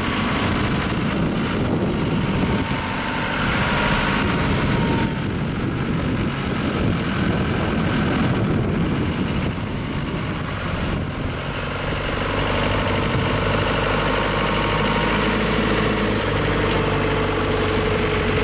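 Gradall telehandler's diesel engine running steadily, with a whine that climbs a little in pitch over the last few seconds.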